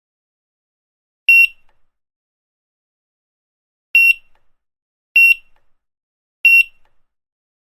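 Grocery checkout barcode scanner beeping four times at uneven intervals. Each beep is one short, high tone, with silence between, and each marks an item being scanned.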